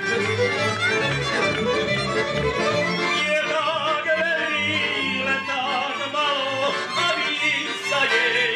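Slovak folk band music: accordion, fiddles and double bass playing a lively tune, with a man's voice singing at the microphone from about three seconds in.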